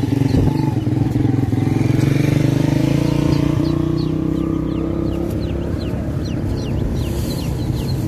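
A motor vehicle's engine running steadily and loudly, then fading away about five seconds in. Over it, hatchling chicks and ducklings peep in many short, high, falling chirps, more and more from about halfway.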